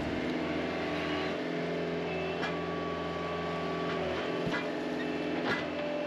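Gehl RT210 compact track loader's diesel engine running steadily while its bucket works a pile of rock dust. There are sharp clanks about two and a half, four and a half and five and a half seconds in.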